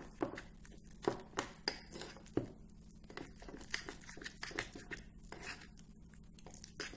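Steel spoon stirring a thick paste in a small glass bowl, scraping and clinking against the glass in quick, irregular taps, with a few sharper knocks in the first couple of seconds.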